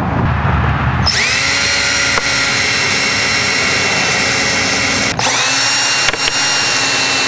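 Ridgid cordless drill/driver driving screws through a headlight housing into a plastic golf cart nose. The motor spins up about a second in and runs steady for about four seconds, stops briefly, then spins up again and runs on to drive the next screw.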